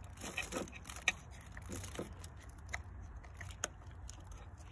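Plastic wiring connector being handled and worked into its socket on the back of an aftermarket headlight housing: a few scattered small clicks and light scrapes, over a low steady rumble.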